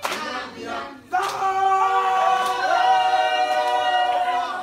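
Voices singing, with one long high note held from about a second in until shortly before the end. A sharp snap sounds at the very start.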